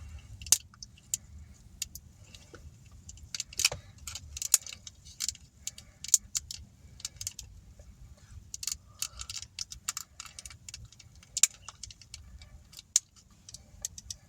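A small taped plastic toy package being handled and picked at by hand while someone tries to open it: irregular clicks, crinkles and light rattles throughout, over a low steady rumble.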